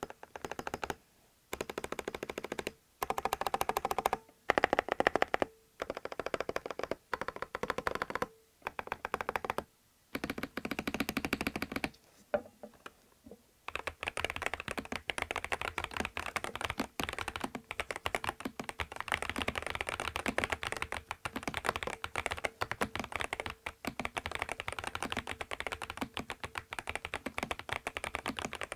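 Typing on a Groovestone GS104 full-size mechanical keyboard with factory-lubed 40 g linear 'Neoul' switches, PBT Cherry-profile keycaps and a PC plate over foam-packed layers. For about the first thirteen seconds the keys are struck in short rapid runs with brief pauses between them, then the typing goes on without a break.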